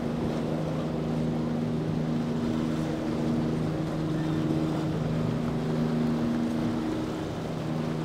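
Motorboat engine running at a steady, even pitch over a haze of wind and water noise.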